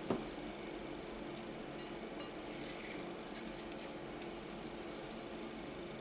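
Stainless hand-turned salt mill grinding salt over raw hake, a faint dry crackle of fine ticks over a low steady hum.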